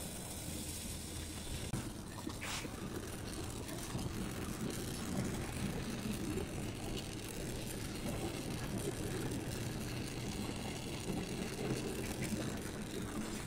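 Oxy-fuel gas torch flame hissing steadily while it heats the joint of a thin aluminium tube, with one short scrape about two and a half seconds in.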